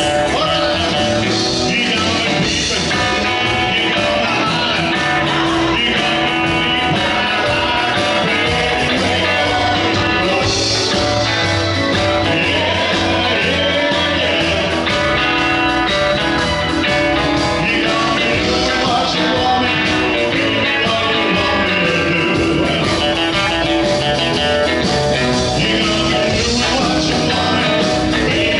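Live rock-and-roll band playing a blues number: electric guitars, keyboard and drums, with a male singer on a handheld microphone.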